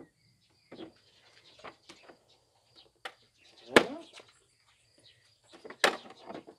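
A few sharp clacks and knocks from parts of a cordless lawn mower being handled during assembly, the two loudest about four and six seconds in.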